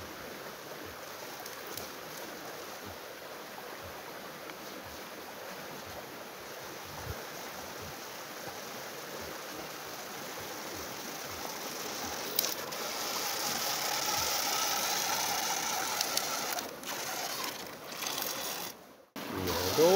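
Steady rush of river water. About twelve seconds in, the high whine of a mini RC speed boat's small electric motors rises over it, wavering in pitch, then breaks off suddenly near the end.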